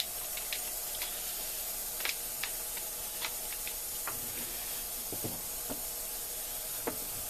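Faint scattered clicks and light rubbing of an AR-15 lower receiver being handled and wiped down with degreaser, over a steady hiss.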